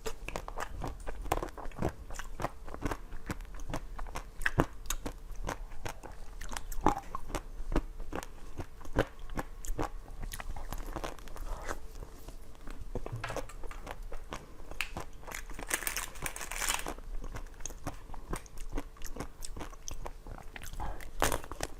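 Close-miked eating: crunchy bites and chewing, a dense run of irregular crackles and crunches, with a louder crunching spell a little past the middle.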